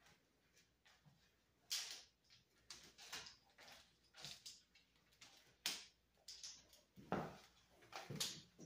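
A water monitor clambering along a pet playpen on a tile floor: irregular short clicks and scrapes of claws on tile and against the pen's panels, a dozen or so, the sharpest ones about two seconds, six seconds and seven seconds in.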